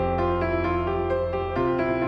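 Background music: piano or keyboard playing a steady run of notes over a held bass note, which changes pitch near the end.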